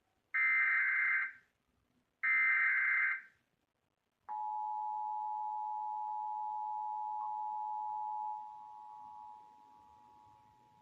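Emergency Alert System Required Monthly Test signal: two short bursts of SAME header data tones, about a second each. About four seconds in, the steady EAS two-tone attention signal comes on. It drops in level after about four seconds and fades away near the end.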